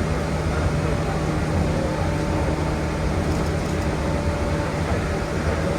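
Steady interior noise of a Shizuoka Railway 1000 series electric train: a low rumble with faint steady humming tones.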